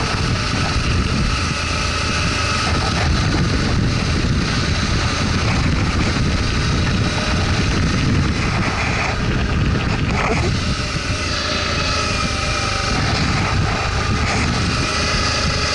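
Motorcycle riding along a dirt road: the engine runs steadily at cruising speed under continuous wind and road noise.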